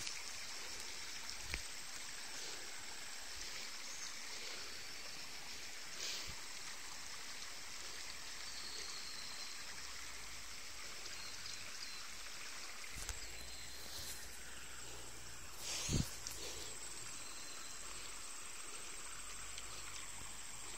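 Water in a muddy stream running with a steady hiss, a thin high steady tone above it, and a single sharp knock about sixteen seconds in.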